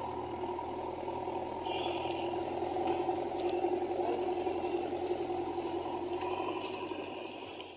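JCB 3DX backhoe loader's diesel engine running steadily, with a few faint clicks about three seconds in.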